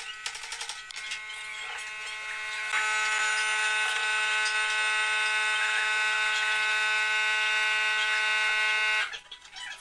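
A small electric power-tool motor running steadily with a high whine. It grows louder about three seconds in and stops abruptly near the end.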